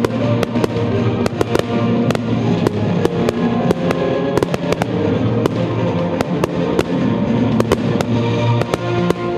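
Aerial fireworks bursting, many sharp bangs and crackles in quick, irregular succession, over loud music.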